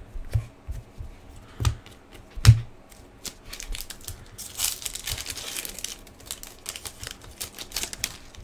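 A foil trading-card pack being torn open and its wrapper crinkled, then scattered crackles as the cards are drawn out. A few sharp knocks from handling the cards come first, the loudest about two and a half seconds in.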